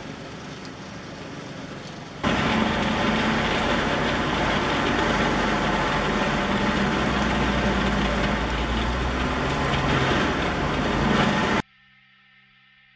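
A heavy wood-processing machine's engine running steadily, quieter at first and then louder from about two seconds in. It cuts off abruptly about a second before the end, leaving only faint steady tones.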